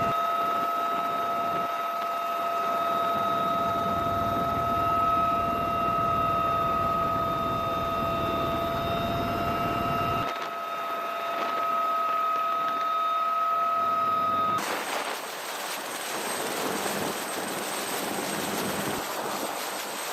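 UH-1Y Venom helicopter's turbine engines running with a steady high whine over rotor noise. About fourteen seconds in the whine cuts off abruptly and a steady rushing noise takes over.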